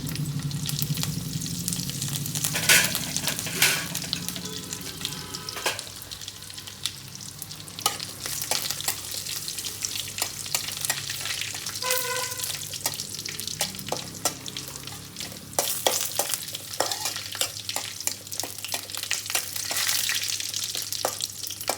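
Tempering of mustard seeds, cumin, urad dal, crushed garlic and curry leaves frying in hot oil in a kadai, sizzling with a dense crackle of small pops.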